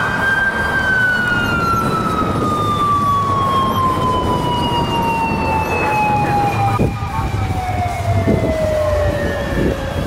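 Japanese police motorcycle siren sounding one long wail, its pitch falling slowly and evenly throughout. It is the signal to a speeding car to pull over once the speed measurement is done.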